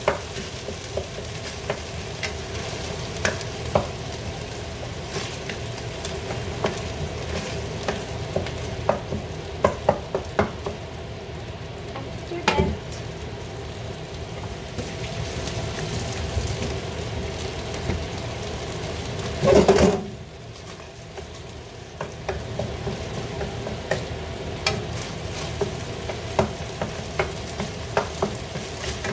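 Canned sardines sizzling in oil in a frying pan on a gas flame, with a wooden spatula clicking and scraping against the pan as they are stirred. One louder knock comes about two-thirds of the way through.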